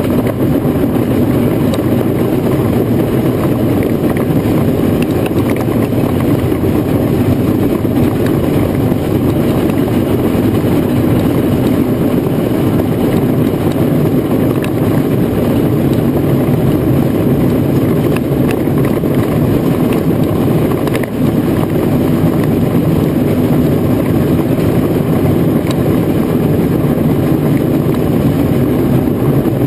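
Marshall steam roller travelling along the road: a loud, steady rumble of the moving engine and its rolls, with a brief dip about two-thirds of the way through.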